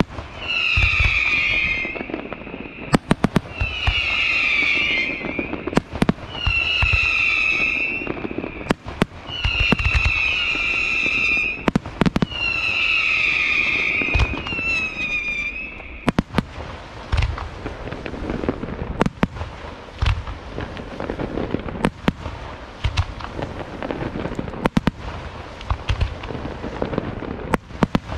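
Aerial fireworks display. For about the first sixteen seconds a string of whistling shells goes up one after another, about every two to three seconds, each shrill whistle lasting a second or two and falling in pitch at its end, among sharp bangs. After that comes a rapid run of cracks and crackling bursts over low booms.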